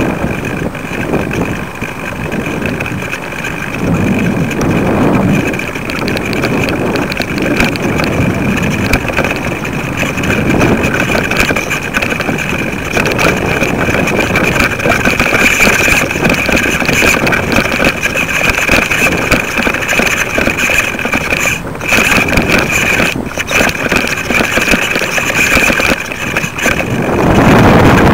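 Wind buffeting the microphone of a kite-lifted camera rig: a loud, gusty rumble with a steady high whine running through it, briefly cutting out twice near the end.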